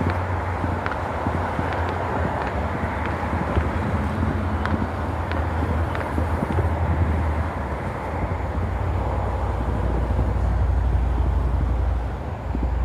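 Steady low outdoor rumble with scattered faint, sharp pops of distant fireworks, several every few seconds.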